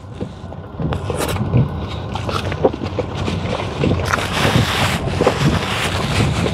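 Chewing and mouth sounds from eating a smash burger close to the microphone, over the steady low road and tyre noise inside a moving electric car's cabin. A brief rustle comes about four seconds in.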